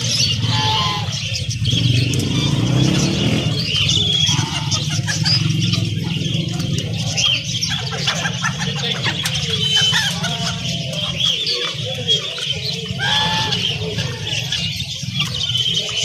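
Caged birds chirping and twittering over a steady low rumble.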